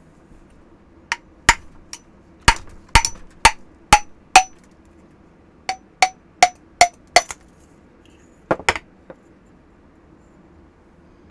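Sharp metal knocks, about two a second in two runs with a short pause between, then two last knocks, each with a brief ring. A corroded home-built hydraulic cylinder is being knocked to work its piston and rod out.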